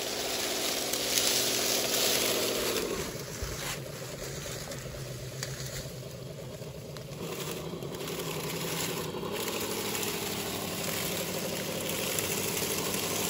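Scale RC crawler truck driving over dry leaves: the electric motor and geared drivetrain whine, dropping in pitch about three seconds in and rising again near the end as the throttle changes, with the leaves crackling under the tyres.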